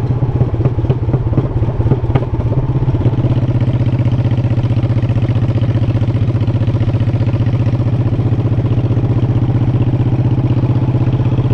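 V-twin motorcycle engine running steadily with an even, pulsing beat, choppier with some clatter for the first few seconds before it settles.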